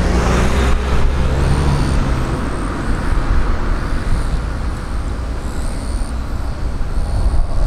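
Airbus A320-200 airliner's jet engines running loud as it rolls along the runway for takeoff: a deep, steady rumble with a broad rush of noise.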